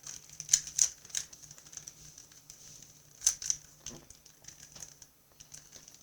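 A Rubik's-brand 3x3 speedcube being turned fast by hand: its layers click and clack in quick irregular runs, with a few louder snaps.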